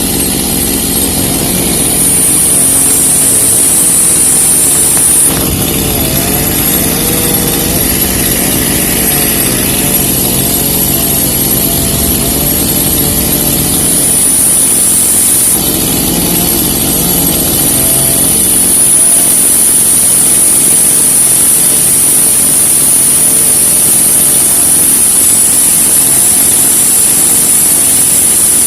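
An engine running steadily and loudly, with a high thin whine that comes and goes several times.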